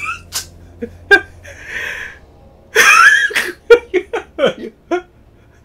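A man's voice letting out a disbelieving, scoffing laugh: a breathy exhale, then a loud breathy burst followed by a quick run of short 'ha' sounds, the laugh of someone too dumbfounded to speak.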